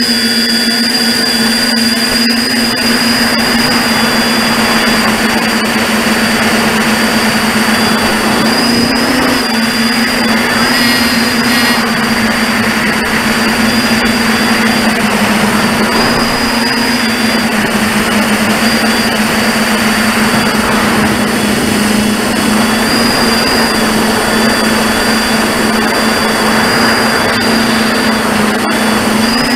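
RC tricopter's electric motors and propellers whining steadily in flight, heard close up from on board over a rush of air. The pitch lifts briefly a few times as the throttle is pushed.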